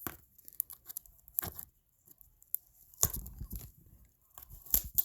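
Packaging being handled and torn open: crinkling and rustling with scattered small clicks and taps, denser about three seconds in.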